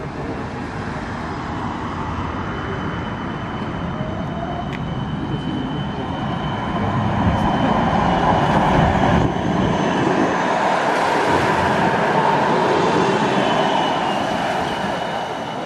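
Amsterdam Siemens Combino tram running along street rails and pulling in close by: a steady rumble of wheels on track with thin high-pitched tones over it. It grows louder toward the middle, holds there, then eases off near the end.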